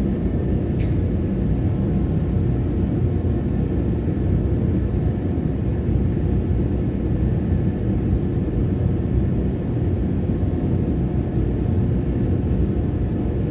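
Forge running with a steady low rumble while a blade billet heats for its last welding heat.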